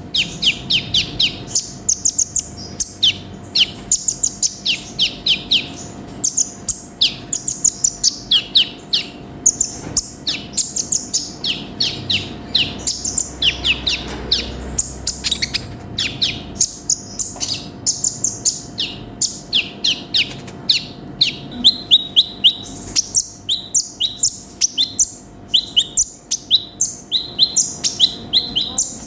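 Konin sunbird singing vigorously: an unbroken stream of rapid, high, thin notes, many as quick falling strokes in fast trills, a full varied song of the kind used as a training recording for cage birds.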